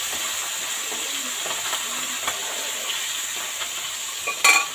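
Tengra fish frying in hot oil in a pan, a steady sizzle, with one brief clatter near the end.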